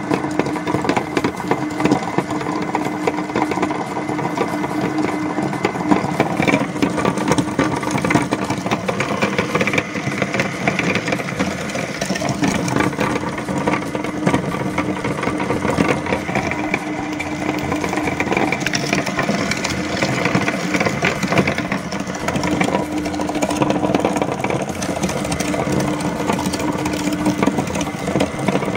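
Cast-iron meat grinder running steadily with a mechanical hum and dense crackle as it shreds uninflated rubber balloons.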